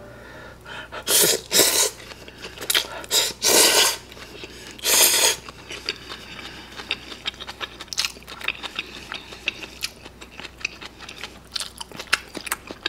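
Close-miked noodle eating: a few loud slurps of yakisoba noodles in the first five seconds, then steady chewing with many small wet mouth clicks.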